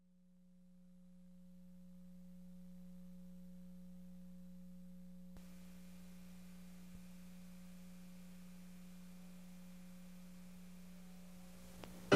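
Faint steady low hum on an old videotape's soundtrack: a single pure tone with a fainter higher overtone. It fades in over the first few seconds, and a background hiss behind it grows louder about five seconds in.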